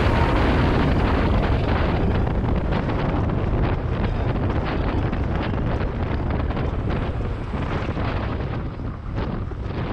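Wind buffeting a GoPro action camera's microphone on a road bike at speed: a steady rumbling rush, dipping briefly about nine seconds in.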